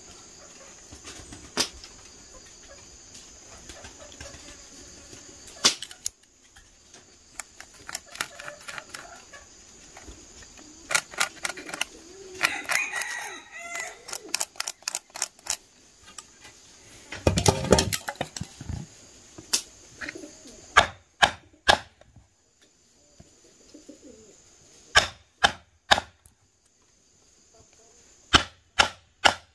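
A series of sharp chopping strikes, coming steadily in pairs and singles near the end, with a stretch of wing flapping and chicken calls around the middle. A steady high-pitched drone runs underneath.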